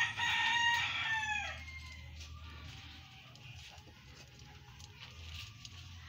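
A rooster crowing once, about a second and a half long, with the last note falling away.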